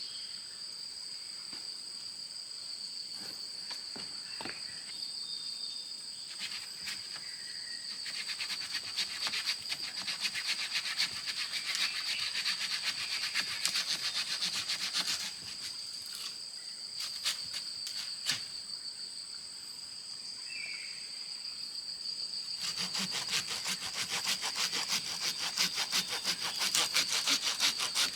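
Steady high-pitched buzzing of forest insects, two tones held throughout. Twice, a rapid rasping starts up and stops, for several seconds each time: about a third of the way in and again near the end.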